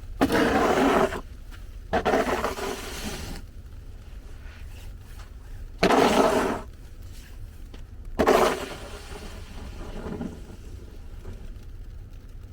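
Four harsh scraping noises, each about a second long and starting abruptly, over a steady low rumble.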